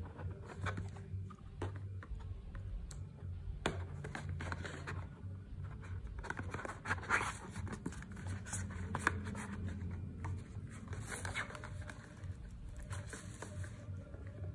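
Handling noise from plastic power bank casings and cardboard boxes being moved and rubbed together by hand: scattered clicks, taps and scratches over a steady low hum.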